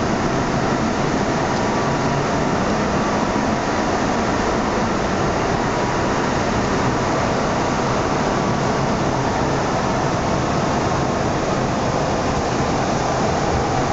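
Bombardier AC09B metro train running at steady speed, heard from inside the passenger car: an even, unchanging noise of wheels on rail and moving air.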